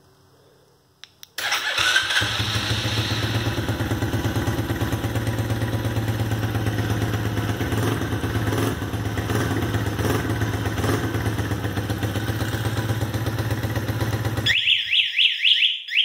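Small single-cylinder engine of a kids' Chinese ATV starting on remote start after two faint clicks, catching about a second and a half in and then idling steadily. Near the end it shuts off and a warbling electronic chirp sounds from the remote-start kit.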